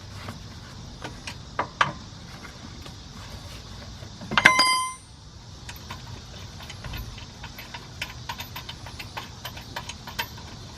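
Small metallic clicks and rapid ticking as a wheel is taken off a car, with a short, loud, beep-like tone lasting about half a second a little after four seconds in.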